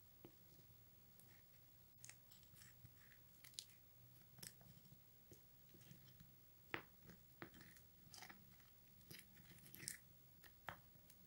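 Faint, irregular scraping and clicking of a plastic spoon stirring a thick, wet henna paste in a glass bowl, with a few sharper ticks where the spoon hits the glass.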